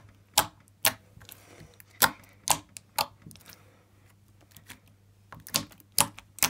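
Green slime being squeezed and poked by hand, giving sharp popping clicks. They come about every half second, stop for about a second and a half, then come in a quicker cluster near the end.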